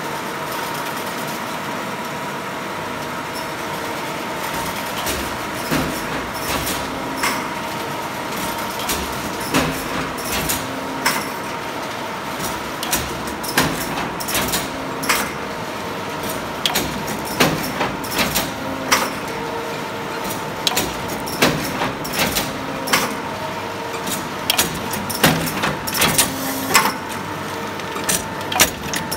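A Duplo sheet collator feeding a Rilecart booklet stitcher, running with a steady mechanical hum and a faint whine. Sharp clacks from the feed and stitching mechanism come every second or two, more often near the end.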